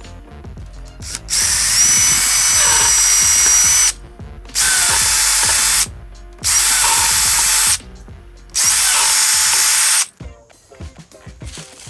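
Makita cordless drill boring small pilot holes through a board, four separate runs with short pauses between, the first the longest, each with a steady high whine. These are the four screw holes for mounting a speaker-wire terminal cup.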